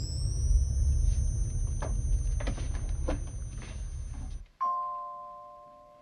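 Ghostbusters proton packs running after power-up: a high whine finishes rising and holds steady over a deep hum. The hum cuts off about four and a half seconds in, followed by a single elevator bell ding that rings out and fades.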